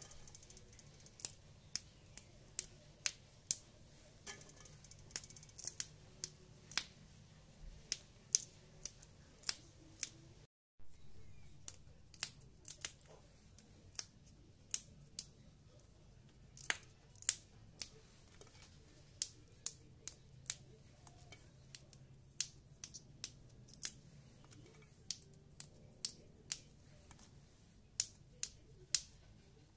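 Fresh green beans being snapped into short pieces by hand: a string of crisp, sharp snaps, irregular, about one or two a second.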